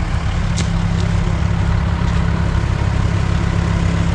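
Engine idling steadily nearby, a low even rumble.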